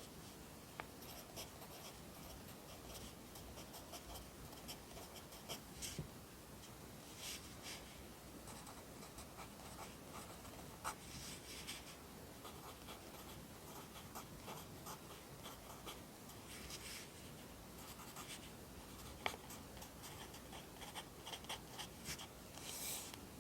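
Handwriting on paper: Korean characters written in a run of short, quiet scratchy strokes, with an occasional sharper tick of the writing tip.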